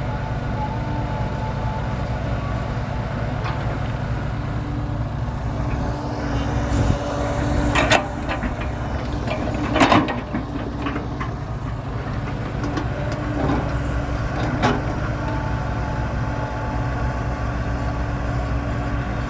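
Heavy diesel engine running steadily, with a few short sharp knocks or hisses about eight and ten seconds in, the one near ten seconds the loudest.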